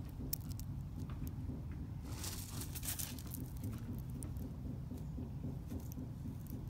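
Handling noise of a stainless steel watch bracelet turned in the fingers: scattered light clicks, with a short rustle about two seconds in, over a low steady rumble.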